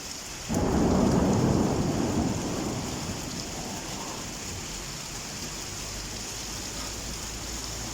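A thunderclap about half a second in, rumbling and fading over two or three seconds, over the steady hiss of heavy rain.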